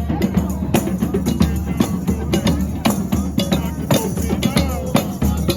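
Live street-parade percussion of Mardi Gras Indians: tambourines and hand drums beating a steady, busy rhythm.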